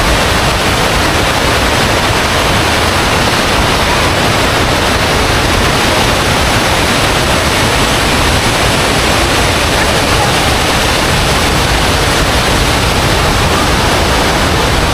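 Steady rush of falling water from the waterfall, an unbroken even noise with no change in level.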